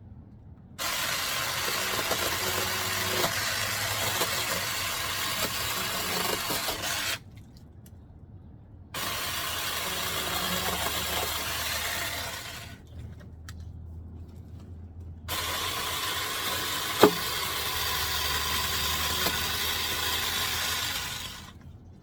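Small battery-powered chainsaw running in three bursts of several seconds each, cutting off abruptly between them as the trigger is released. There is a sharp crack partway through the third burst.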